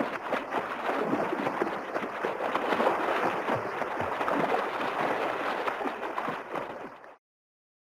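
Water splashing and sloshing in a continuous run of small, irregular splashes, which cuts off abruptly about seven seconds in.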